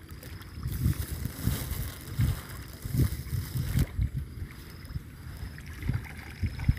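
Wind buffeting the microphone in low, irregular rumbles.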